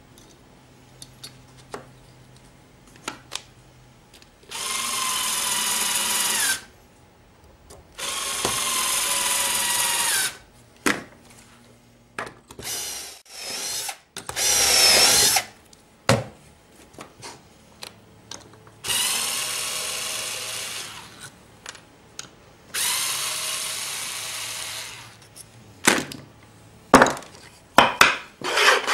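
Cordless drill boring dowel holes into wood through a metal doweling jig, in about six runs of one to three seconds each. Between the runs come clicks and knocks as the jig is moved along the board, and a cluster of knocks near the end.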